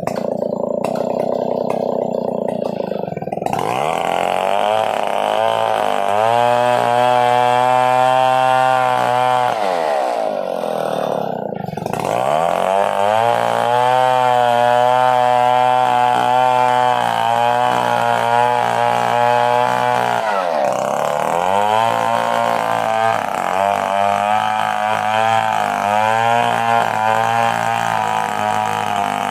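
Stihl 070 chainsaw's large single-cylinder two-stroke engine run up to full throttle three times, each held for several seconds, dropping back toward idle in between.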